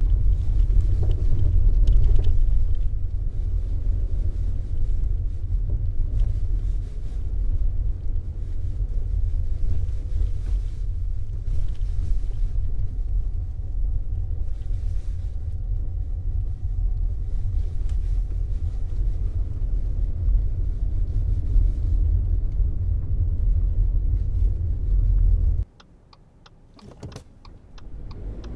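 Low, steady rumble inside the cabin of a 2021 Subaru Forester e-BOXER driven off-road, mostly tyre and suspension noise on an unpaved track. Near the end the rumble cuts off suddenly, leaving a much quieter stretch with a few faint clicks.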